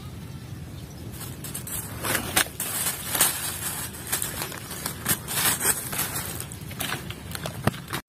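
Handling noise: rustling and scraping with a dense run of sharp crackles and clicks, busiest in the middle and cutting off suddenly at the end.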